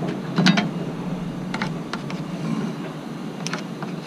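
A few light taps and clicks as a metal speed square and carpenter's pencil are handled on a wooden wall plate while stud positions are marked.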